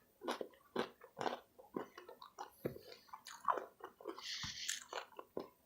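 Close-up chewing and biting of crunchy stuffed nacho snack rolls: irregular wet crunches and mouth clicks, with a brief soft hiss about four seconds in.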